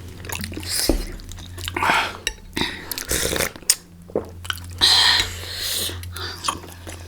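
Close-miked eating sounds of momo dumplings being chewed, with irregular wet mouth clicks and smacks.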